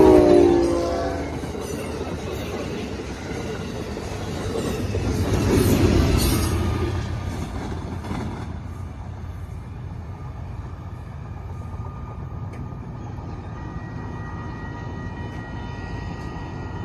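Amtrak Downeaster passenger train passing close by at speed: the locomotive's horn chord dies away in the first second, then the rumble and clatter of the wheels and cars going by, swelling again about six seconds in, before the train gradually fades into the distance.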